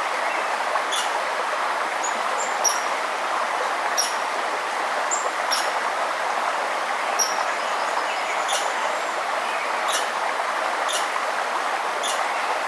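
Steady rush of flowing river water, with a songbird repeating short high chirps about every second or so.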